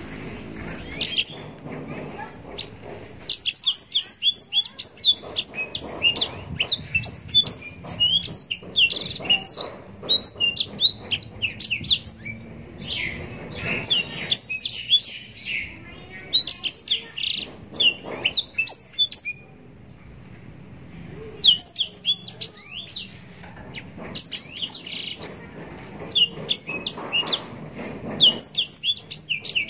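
Black-throated canary (blackthroat) singing long, rapid phrases of high, twittering notes, with short breaks between phrases and one longer pause about two-thirds of the way through.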